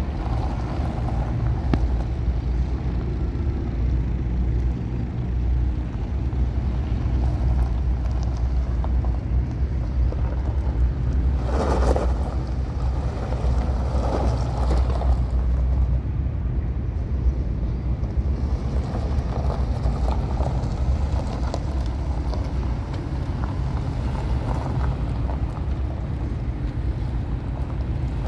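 Wind buffeting the microphone: a steady low rumble, with a brief louder swell about twelve seconds in.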